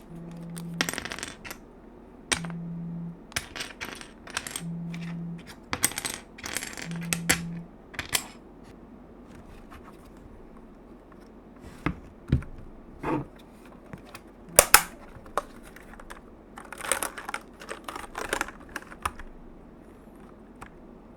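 Sharp, irregular clicks and clinks of small hard parts being handled and set down during a keyboard unboxing. A low hum comes and goes four times in the first eight seconds.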